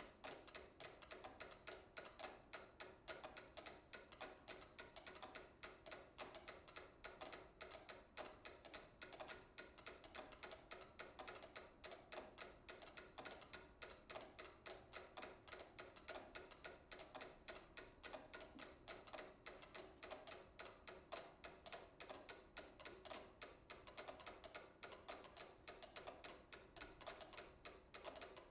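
Several pyramid-shaped mechanical metronomes ticking together at different tempos. Their clicks overlap in a dense, shifting rhythm of several ticks a second.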